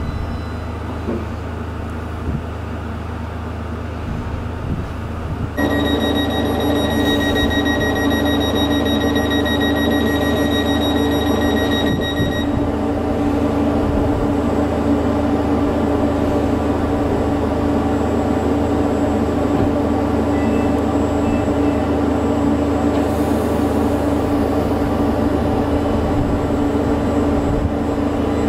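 Class 484 electric train standing at the platform, its onboard equipment humming steadily. About five seconds in a louder, steady electrical whine comes on and keeps going, with high steady tones over it for the next seven seconds or so.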